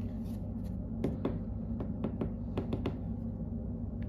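A run of light, irregular clicks and taps, about eight over two seconds, as small hard laser-cut wooden parts and a glue bottle are handled, over a steady low hum.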